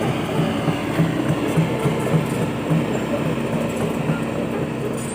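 Large excavator working: its diesel engine runs steadily with a low, uneven rhythmic pulsing.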